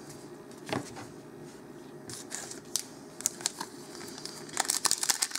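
Hands handling trading cards and the foil wrapper of a sealed Magic: The Gathering booster pack: scattered soft taps and rustles, then a dense crinkling of the wrapper starting about four and a half seconds in.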